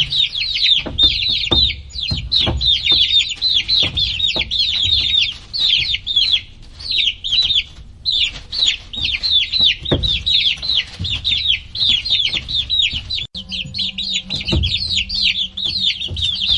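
A group of chicks peeping loudly and continuously, many short downward-sliding peeps overlapping one another, with scattered low thumps underneath.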